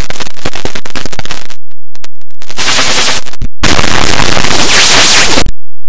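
Cartoon soundtrack mangled by an audio distortion effect into harsh, fully clipped noise: a dense rapid crackle of clicks at first, then abrupt breaks, then a loud hiss that cuts off suddenly near the end.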